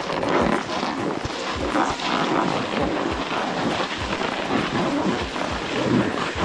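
Snowboards scraping and sliding over groomed snow, with wind buffeting the microphone: a steady rushing noise broken by short low rumbles.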